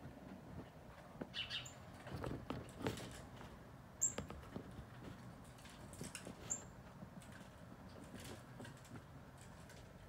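Northern cardinal giving short, sharp, high chip calls, three of them a couple of seconds apart, each dropping slightly in pitch, over faint rustling and clicks.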